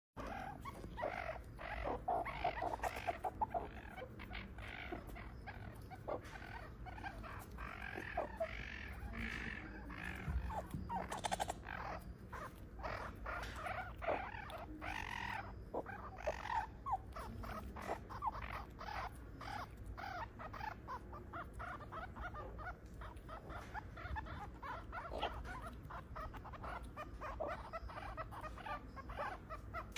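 Meerkats calling: a steady stream of short chirps and squeaks in quick succession, louder in the first half.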